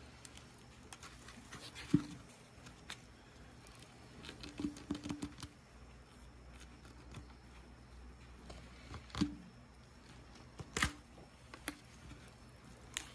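Scattered small clicks, soft cracks and a few sharper knocks as gloved hands twist and break a dead iguana's neck to take off the head, with a quick run of small clicks about five seconds in.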